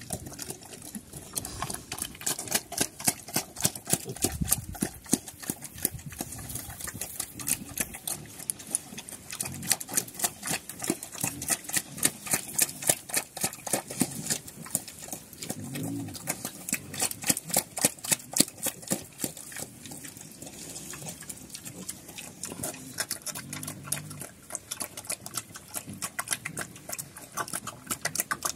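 A Kandorl sow eating feed from a trough, a fast, continuous run of wet chewing and smacking clicks. From about halfway through, short low pig grunts come in every few seconds while piglets suckle.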